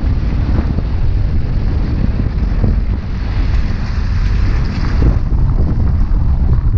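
Strong wind buffeting the microphone: a loud, steady rushing noise that grows hissier for a couple of seconds in the middle.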